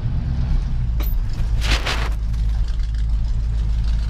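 Pickup truck driving slowly, heard from inside the cab: a steady low engine and road rumble, with a click about a second in and a short hiss soon after.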